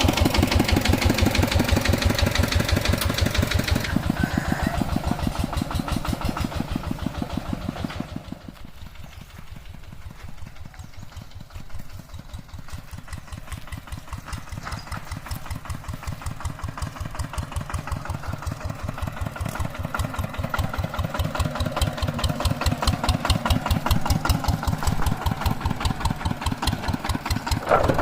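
Two-wheel hand tractor's engine running with a steady, rapid beat of firing pulses. It grows fainter over the first eight seconds or so, then louder again toward the end.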